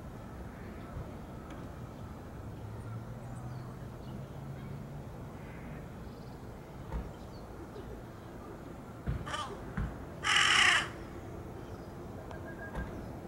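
Fledgling jungle crow giving one loud caw about ten seconds in, with a shorter, fainter call about a second before it.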